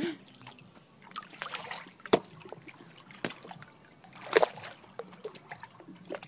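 Hot tub water trickling and splashing as people shift in it, with a few short sharp splashes about two, three and four and a half seconds in, over a steady low hum.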